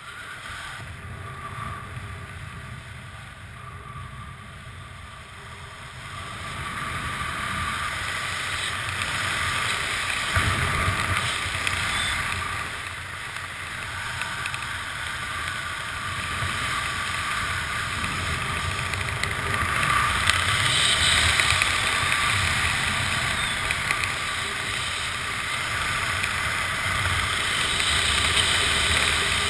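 Wind rushing over a helmet camera's microphone during a parachute descent under canopy, a steady rush that grows louder about six seconds in and then gusts unevenly.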